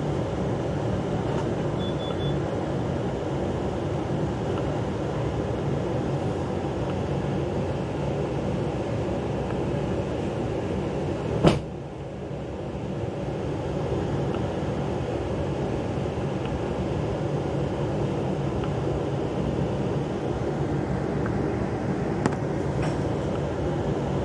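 Steady low rumbling background noise, with one sharp click about halfway through.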